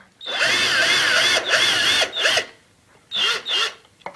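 Cordless power drill backing screws out: one run of about two seconds with a wavering whine, then two short bursts of the motor.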